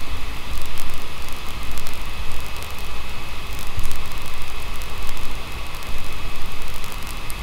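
Steady background hiss with a low rumble and a thin, steady high whine, with faint ticks scattered through.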